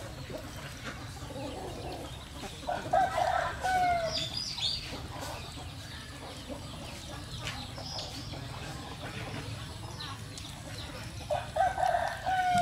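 A rooster crowing twice, about eight seconds apart, each crow ending in a falling note.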